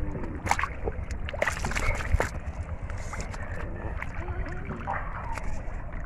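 Water splashing and sloshing with scattered short clicks and knocks, over a steady low rumble.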